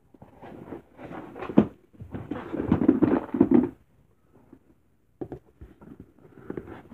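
Wrapping paper and a cardboard shipping box rustling as they are handled, in irregular bursts. There is a short pause about four seconds in, followed by a few light knocks.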